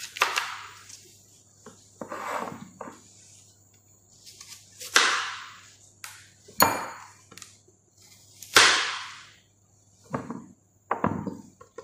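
Knife chopping down onto a cutting board: about eight irregular strikes, each with a short ringing tail.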